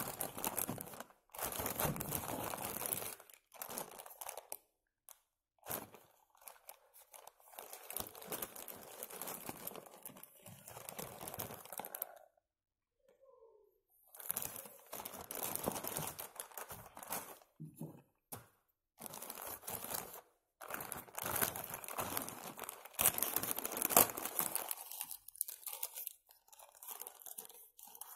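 Plastic courier mailer bag crinkling and tearing as it is handled and pulled open by hand, in stretches of rustling broken by short pauses.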